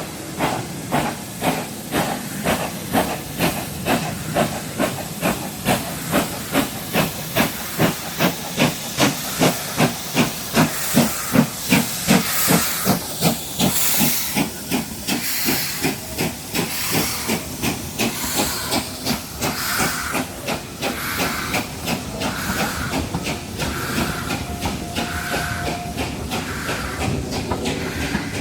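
Steam locomotive working through the station with a steady rhythm of exhaust chuffs, about three a second, with hissing steam. The beats build to their loudest about eleven seconds in, then give way to a softer rhythm as the train passes.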